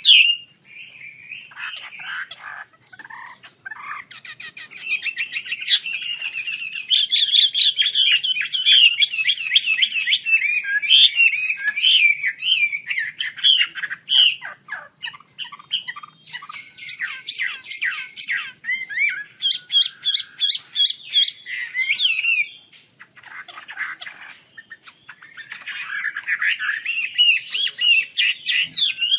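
Chinese hwamei singing a long, varied song of loud whistled phrases, rapid trills and harsher notes, pausing briefly about 14 seconds in and again about 24 seconds in.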